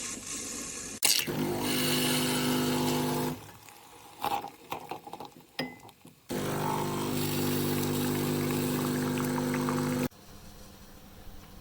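Breville Bijou espresso machine's 15-bar pump buzzing steadily in two runs, about two seconds and then about four seconds, each cutting off abruptly, with small clicks and knocks in between.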